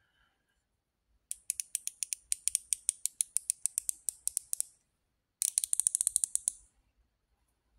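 Icon 90-tooth flex-head ratchet turned by hand, its pawl clicking: a steady run of fine clicks for about three seconds, then after a short pause a quicker run of about a second.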